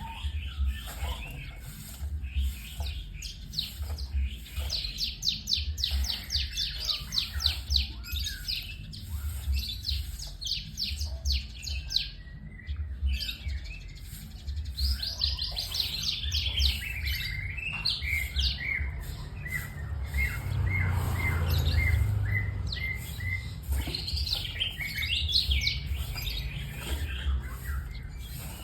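White-rumped shama singing a fast, varied song of rapid repeated trills and short whistled notes, with a brief pause about twelve seconds in.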